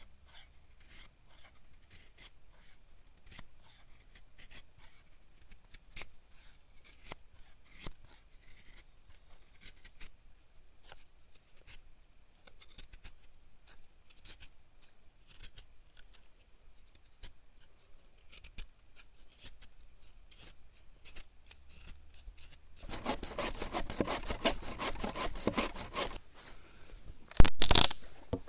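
Knife blade shaving thin curls down a birch stick to make a feather stick: short scraping strokes, one after another. The strokes come faster and louder in the last few seconds.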